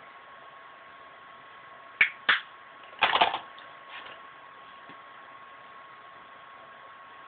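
Makeup brush tapped against a hard surface to knock off excess powder: two sharp taps about two seconds in, then a quick cluster of taps about a second later and a lighter one after that. A faint steady hum runs underneath.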